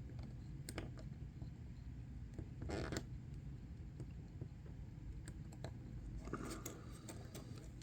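Small hobby blade scraping and clicking against a diecast toy car's plastic base and axle as it is wiggled in to pry up the prongs that hold the factory wheels: faint scattered ticks, with a louder scrape about three seconds in and another near the end.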